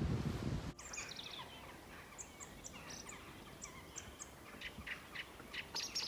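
A brief low rumble, then birds singing: many short high chirps and a few quick falling trills over a faint steady background.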